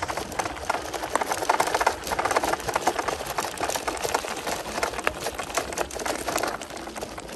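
Folding e-bike rolling over a loose gravel track: a dense, irregular crackle of tyres on stones.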